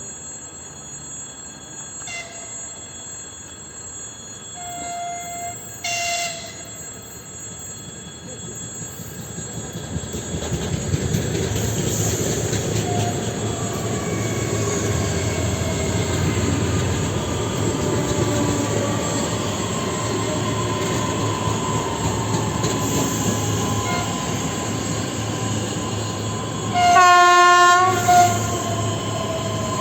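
Electric train running past: a few short horn toots in the first several seconds, then its running noise builds from about ten seconds in and holds, with a whine slowly falling in pitch. Near the end comes one loud horn blast of about a second.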